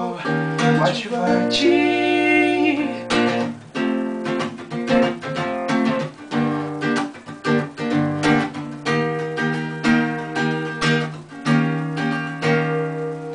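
Acoustic guitar strummed in a steady rhythm of chords. Early on, a man's voice holds one long, wavering sung note, then the guitar plays on alone.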